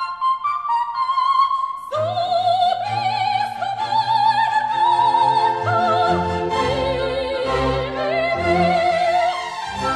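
Background music: a light melodic passage of high notes that gives way, about two seconds in, to a full orchestra with a singer in operatic style, the voice wavering in strong vibrato over a bass line.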